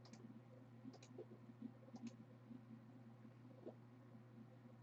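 Faint computer mouse clicks, mostly in quick pairs about once a second, over a low steady hum.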